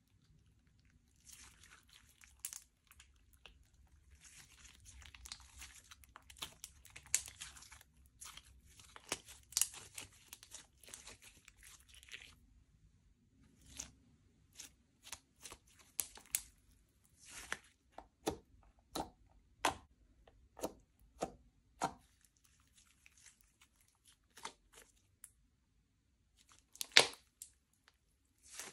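Slime being worked by hand: sticky crackling and tearing as it is stretched and pressed, then a run of sharp pops about twice a second, with one loud pop near the end.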